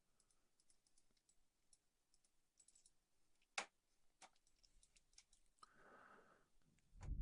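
Near silence with a few faint clicks from a computer mouse and keyboard, the clearest about three and a half seconds in, and a soft low rustle near the end.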